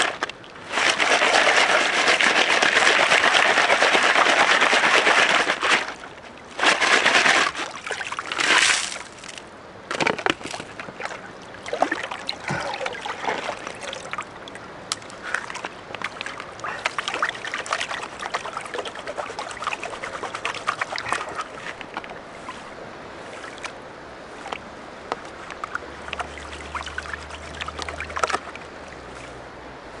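Water sloshing and splashing as river gravel is washed through a plastic classifier sieve into a gold pan, loud for the first five seconds and again in two short spells. Then gold panning: water swishing in a plastic gold pan with many small clicks of pebbles and gravel knocking against it as the pan is swirled.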